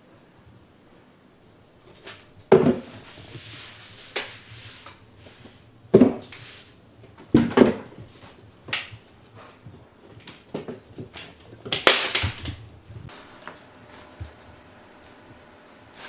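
A cat leaping and pouncing at a toy on a wooden floor: irregular thumps and scuffles of paws landing and skidding, a few of them sharp and loud.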